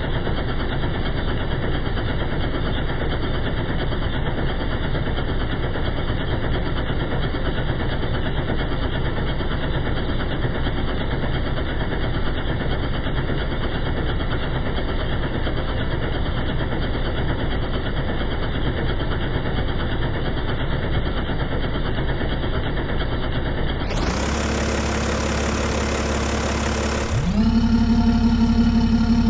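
BMW M57 straight-six turbodiesel idling, an even, dull rumble. About 24 seconds in the sound turns brighter, and a few seconds later it gets louder with a steady hum over the idle.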